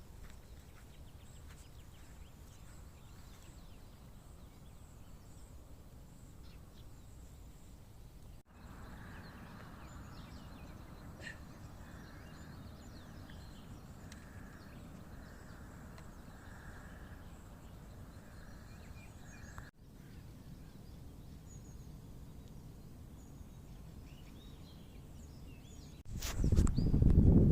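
Faint outdoor background noise in three stretches joined by abrupt cuts, the middle one with a faint chirp repeating about once a second. A loud low rumble starts suddenly near the end.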